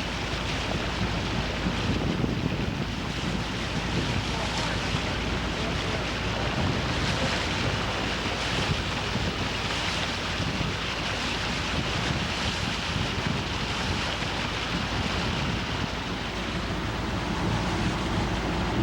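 Steady rushing noise with a low rumble, unbroken and without distinct events.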